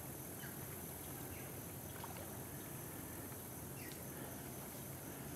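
Steady outdoor ambience: a constant high insect drone over a low rumble, with a few faint, short bird chirps scattered through.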